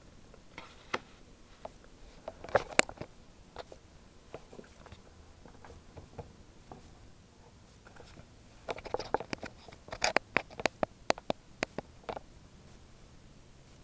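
Light clicks and taps from handling trading cards and their packaging, with a quick run of sharp clicks in the second half.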